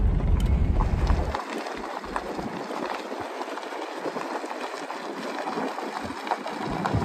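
Truck towing a travel trailer on a gravel road with the windows down: steady road noise full of small clicks and rattles, with wind buffeting the microphone for about the first second and a half.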